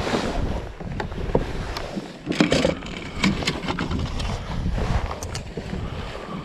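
Wind buffeting the microphone with a steady low rumble, over water and a kayak on the move, with a cluster of sharp clicks and knocks a couple of seconds in.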